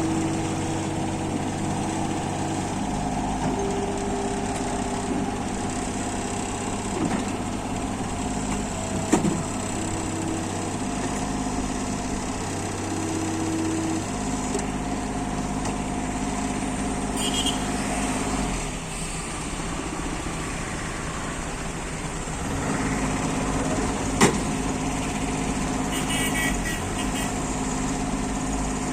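Bobcat E27 compact excavator's diesel engine running steadily, its note shifting every few seconds as the machine works. A sharp knock about nine seconds in and another near twenty-four seconds.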